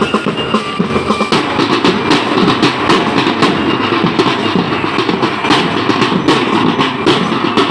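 A street drumline of marching drums playing a fast, dense beat, growing fuller about a second in.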